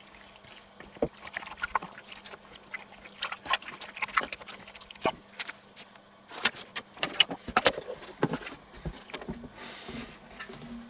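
Wet squelching and smacking of marinated goulash meat being kneaded by gloved hands in a stainless steel bowl, for about five seconds. Then come sharper clicks and rustles of handling, and a brief hiss near the end as a plastic lid is set on the bowl.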